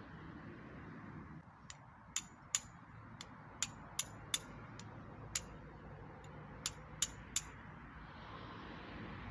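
Wood campfire crackling: about a dozen sharp, irregular pops over a low, steady rush.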